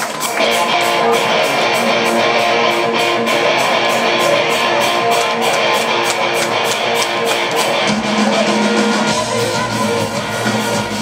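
Rock band playing live through a theatre PA, recorded from the audience: electric guitars over drums, with the low end growing fuller about eight seconds in.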